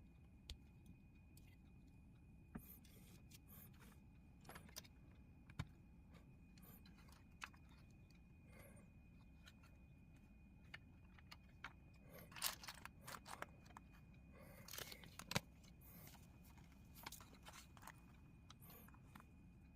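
Small plastic LEGO pieces clicking and rattling as they are handled and pressed together. Scattered single clicks give way to a busier clatter a little past the middle and again a few seconds later, over a faint steady hum.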